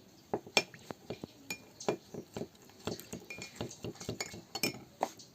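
A kitchen utensil clinking and knocking against a glass or ceramic container, a few light, irregular taps a second, some with a short ring. This fits mixing the ginger-and-honey syrup.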